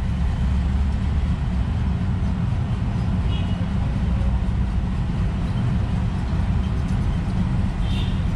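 Steady low outdoor rumble, with faint short bird chirps about three seconds in and again near the end.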